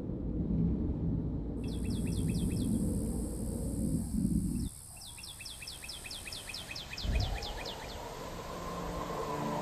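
A bird singing quick runs of short, high chirps, about six or seven a second, in two bursts, the second one longer. Under the first burst is a low rumbling noise that cuts off about halfway, and a brief whoosh swells up about seven seconds in.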